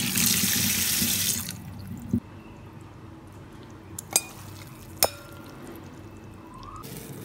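Tap water running onto soaked bean vermicelli in a stainless mesh strainer, cutting off after about a second and a half. Then three short sharp knocks follow in a quieter stretch.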